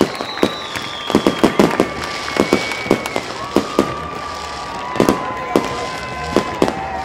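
Sharp celebratory pops going off irregularly, at times several a second, like firecrackers at a celebration. Several long, steady whistle-like tones sound over them.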